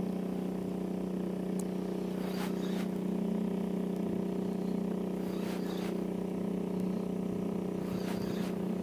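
Small boat's outboard motor running at low trolling speed, a steady unchanging drone carried across the water, with a few faint ticks.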